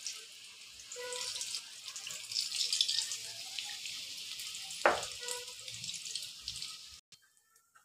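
Batata vadas coated in gram-flour batter deep-frying in hot oil in a kadhai: a steady crackling sizzle, with one sharp knock about five seconds in. The sizzle cuts off suddenly near the end.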